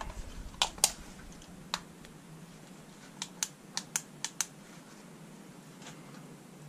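Light clicks and taps of the removed EGR valve from a 2.0 CDTI diesel being handled and turned over in gloved hands: two near the start, one a second later, then a quick run of six about halfway through.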